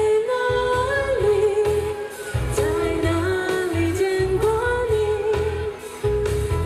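A woman singing a slow classic pop song live through a PA, over amplified backing music with a steady pulsing bass beat. Her voice holds long, gliding notes.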